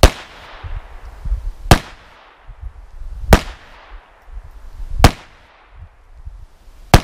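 .22 Long Rifle semi-automatic pistol fired five times, slow and evenly, one sharp shot about every 1.7 seconds, each followed by a short echo off the range.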